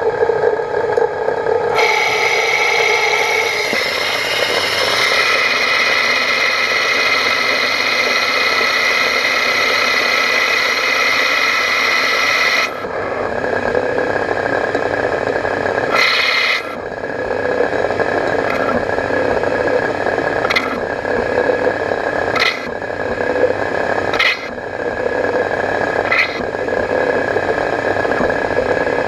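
ProtoTrak CNC lathe spindle running, with the Jacobs rubber-flex collet chuck's locking collar rattling as the tool turns a brass part. A higher, steady cutting sound runs from about two seconds in until about twelve, then short bursts come about every two seconds.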